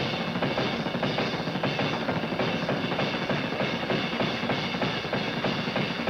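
Jazz drum solo on a full drum kit: fast, dense strokes and rolls on snare, toms and bass drum with cymbals, building toward a furious finale.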